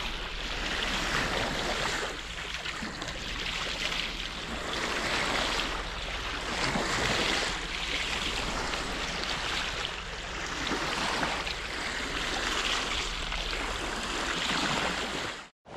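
Seawater rushing and splashing past the hull of a sailboat under way, surging and easing every second or two. It cuts off suddenly near the end.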